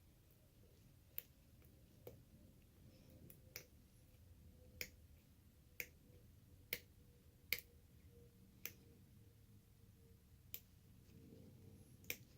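Lock pick working the pin stack inside an ABUS 83/55 padlock: about ten small sharp metallic clicks at uneven intervals, over a faint steady hum.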